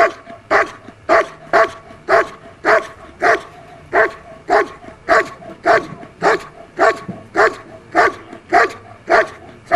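Belgian Malinois barking at a still protection-work helper in a guard-and-bark, an even run of sharp barks at about two a second.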